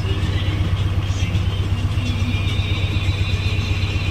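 JCB backhoe loader's diesel engine running steadily, with a strong low, even drone.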